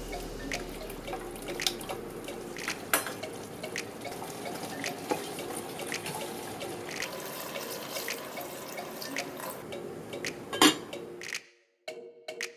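Kitchen water sounds with scattered light clicks, one louder clink about ten and a half seconds in, then a sudden drop away just before the end.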